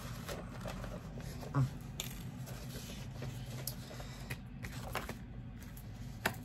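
Paper sheets and cards rustling as they are handled, with faint scattered clicks, a brief low thump about one and a half seconds in and a sharp click near the end, over a low steady room hum.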